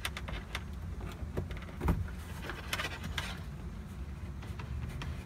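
Thin metal rudder control cable being fed by hand into a narrow hose inside a kayak hull: scattered small clicks and scraping rustles, with one louder knock about two seconds in.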